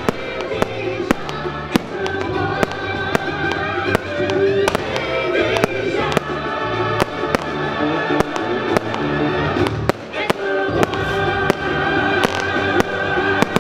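Aerial fireworks bursting with many sharp bangs, irregular and at times several a second, over music played with the display.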